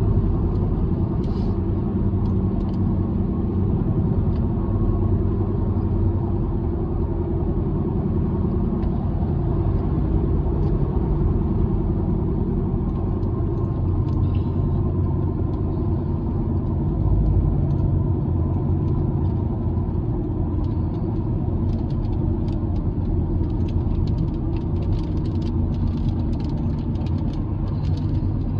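Road and engine noise of a moving car heard from inside the cabin, a steady low rumble. In the last third come scattered light ticks, raindrops starting to hit the car.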